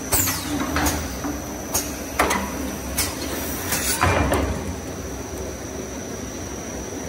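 Toilet paper core making machine running with a steady hum and a thin steady high tone, with a series of sharp clacks and scraping strokes, one falling swish among them, during the first four seconds or so before it settles back to steady running.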